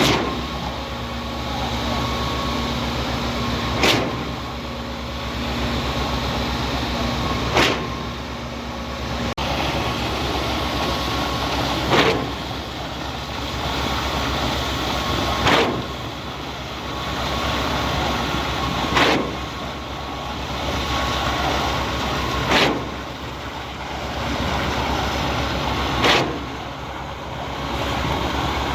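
Cifa K42L truck-mounted concrete pump running steadily while pumping, with a sharp clunk about every three and a half seconds as the pumping cylinders change stroke.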